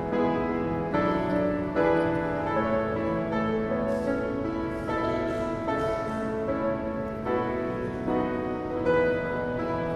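Elementary-school children's choir singing held notes that change every half second or so, with piano accompaniment.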